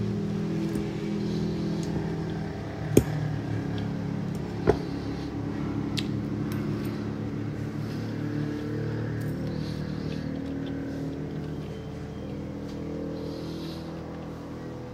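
A person eating salad with a metal fork: chewing, with two sharp clicks of the fork against the bowl about three and four and a half seconds in, over a steady low mechanical hum.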